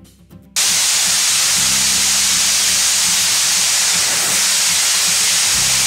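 Rotary drum screen filter cleaning fish-hatchery raceway water, its backwash spray jets giving a loud, steady hiss that starts abruptly about half a second in.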